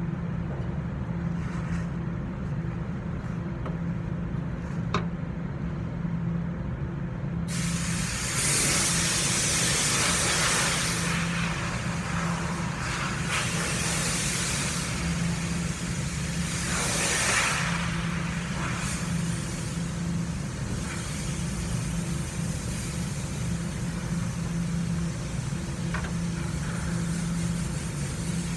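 Hissing that swells in several bursts, like escaping compressed air, over a steady low machine hum.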